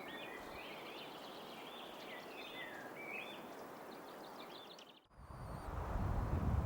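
Male pied flycatcher singing a run of short, high notes repeated in quick phrases. About five seconds in, the song breaks off at a cut and a louder low rumbling noise takes over.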